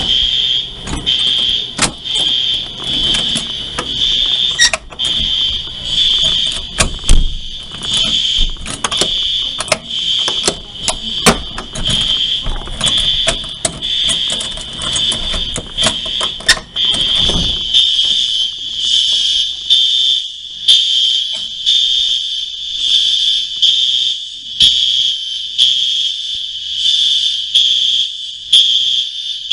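Apartment building fire alarm sounding: a loud, high-pitched electronic tone pulsing steadily. Knocks and rustling run beneath it until about two-thirds of the way through.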